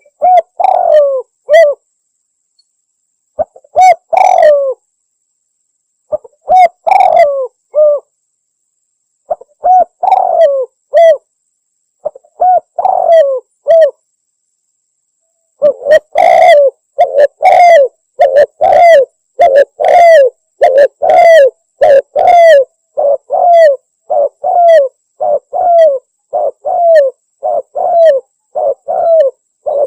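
Spotted dove (tekukur) cooing: short phrases of low coos every two to three seconds, then from about halfway a steady unbroken run of coos, about one a second or a bit faster.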